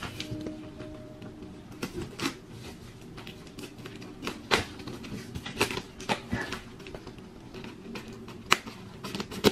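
Scissors slicing through packing tape on a cardboard box, with irregular snips, scrapes and cardboard rustling, and a sharper click near the end.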